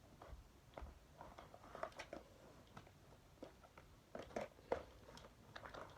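Faint, scattered clicks and taps of small objects being handled, a few slightly louder ones about two seconds in and past the middle.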